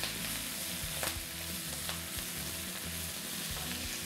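Dinosaur kale sizzling in hot olive oil in a nonstick frying pan as it is stirred with a wooden spatula: a steady frying hiss, with a couple of sharp clicks about one and two seconds in.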